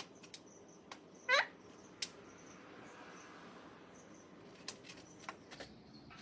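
A parrot giving one short rising chirp about a second in, among scattered light clicks and taps.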